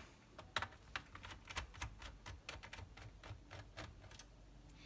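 Screwdriver undoing a small screw in a laptop's plastic base: a run of faint clicks and ticks, about four a second, that stops shortly before the end.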